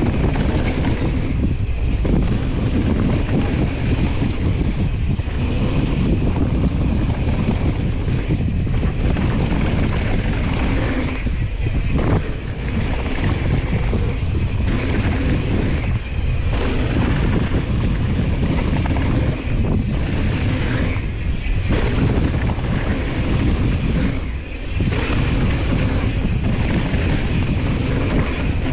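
Wind buffeting the microphone of a handlebar-view camera on a mountain bike descending a dirt trail at speed, mixed with the tyres rolling over dirt and gravel. The rush dips briefly twice.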